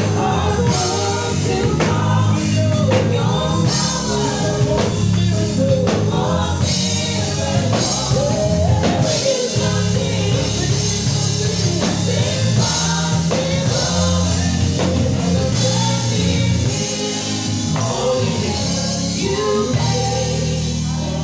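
Gospel worship music: voices singing a melody over a band, with a steady beat of drum hits and a moving bass line.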